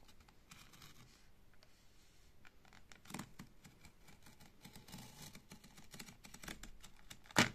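A thin blade slitting along the sealed edge of a cardboard-backed plastic blister pack: faint scratchy cutting with scattered small clicks, a louder click about three seconds in and a sharp click near the end.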